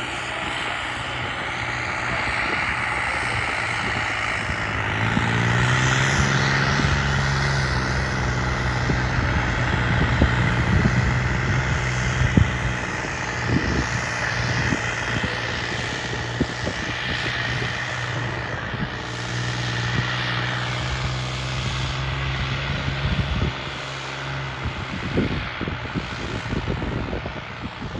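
New Holland 3630 tractor's three-cylinder diesel engine with an aftermarket turbocharger, working under load as it pulls a tillage implement. A steady high whine sits over the engine note. The engine pitch rises about five seconds in.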